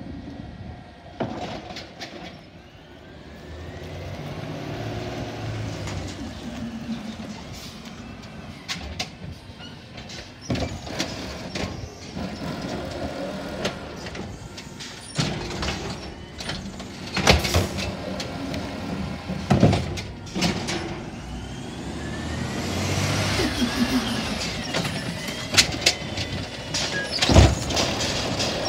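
Natural-gas automated side-loader garbage truck working: the engine runs and the hydraulic arm whines as it grips, lifts and empties a recycling cart. There are several sharp bangs from the cart and arm, the loudest near the end as the cart is set back down.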